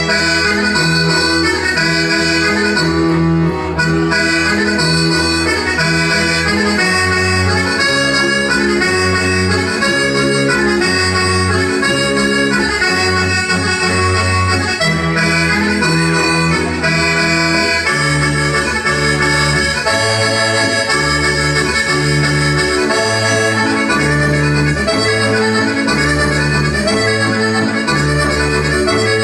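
Sardinian organetto (diatonic button accordion) playing a logudoresa dance tune solo: a busy melody over alternating bass and chord notes. About two-thirds of the way through, the bass changes to a quicker, regular back-and-forth pattern.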